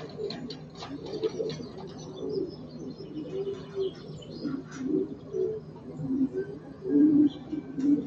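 Racing pigeons cooing in their loft: many short low coos overlapping one another, loudest about seven seconds in, with some faint higher chirping.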